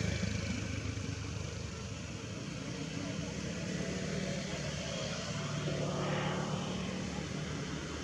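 A motor vehicle engine running steadily as a low hum, swelling briefly around six seconds in.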